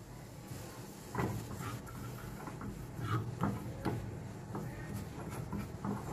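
Silicone spatula stirring sugar into water in a small metal saucepan: irregular scraping strokes and soft knocks against the pan, starting about a second in, as the sugar is being dissolved.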